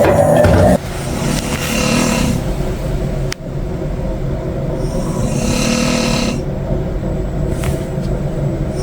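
A person snoring heavily in a shared room, slow rasping breaths swelling and fading about every four seconds. A louder sound cuts off less than a second in, and there is a single sharp click midway.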